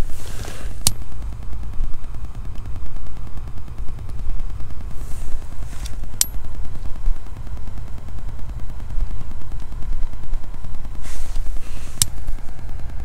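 Wind buffeting the microphone in a steady low rumble, with a lighter struck three times, about six seconds apart: each time a short hiss, then a sharp click.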